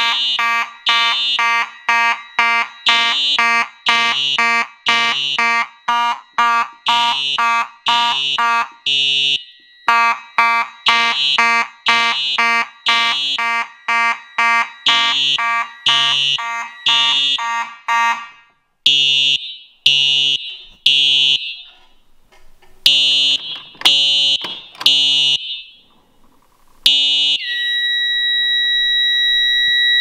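Simplex fire alarm horns sounding together: the Simplex 2901-9833 horn pulsing rapidly in march time over the Simplex TrueAlert sounding temporal code 3, three pulses then a pause. About 18 seconds in, the march-time pulses drop out and only the code-3 groups continue; the owner thinks a prong probably worked loose. A couple of seconds before the end the pulsing stops and a steady high tone sounds.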